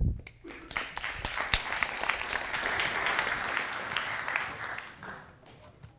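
Audience applauding. The clapping builds up within the first second, holds steady, then fades away near the end.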